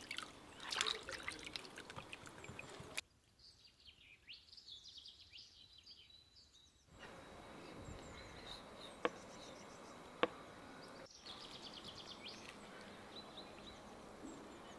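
Faint water trickling and dripping for the first few seconds, then birds chirping. Later two sharp clicks, about a second apart, of small knives cutting peaches, with more bird chirps.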